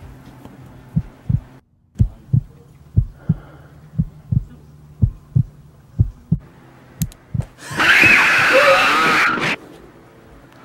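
Heartbeat sound effect: low double thumps, lub-dub, about once a second. Near the end, a loud scream of under two seconds cuts in over it.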